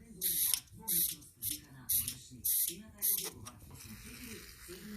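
Five short hissing blasts of spray while the snowblower's carburetor is being cleaned, stopping about three and a half seconds in.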